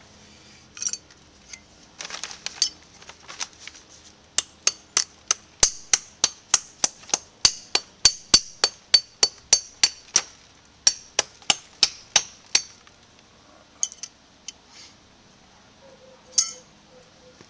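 Hammer blows fastening plastic root-barrier sheeting to the sides of a trench: a steady run of sharp, clinking strikes, about three a second, with a short break in the middle, and a few scattered knocks before and after.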